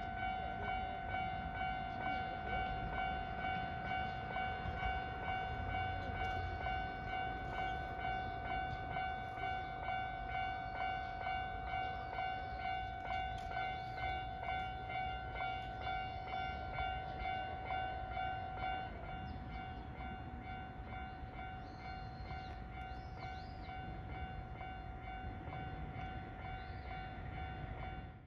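Japanese railway level crossing's electronic warning bell ringing, one pitched tone struck over and over at an even, rapid pace. About two-thirds of the way through, the beat smooths into a more even tone.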